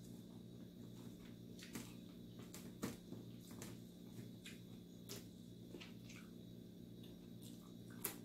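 Faint mouth sounds of a person eating rice and sautéed sardines by hand: irregular wet smacks and clicks of chewing, the loudest about three seconds in and near the end, over a steady low hum.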